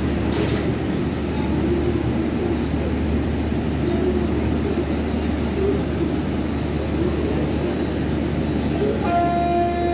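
Express train's LHB passenger coaches rolling past: a steady rumble of wheels on rail with faint clatter. Background music with steady tones comes in near the end.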